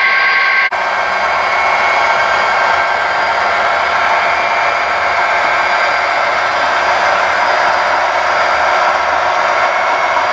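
HO scale model diesel locomotive and train running on the track: a steady whirring hum with some steady tones in it. The sound dips briefly and changes character under a second in.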